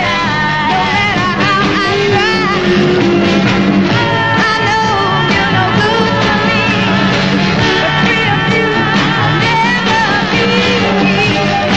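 1960s Motown soul song with a woman singing over a full band with a steady beat.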